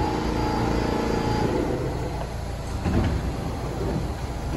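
New York City subway train in the station: a steady hum of several tones over a low rumble cuts off about a second and a half in, and a short knock comes about three seconds in.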